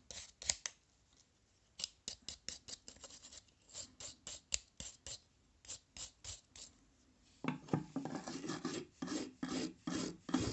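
Rapid back-and-forth hand scraping strokes on a rusty vintage awl being cleaned up. The strokes come in quick runs with a short pause about a second in, and grow heavier and fuller over the last few seconds.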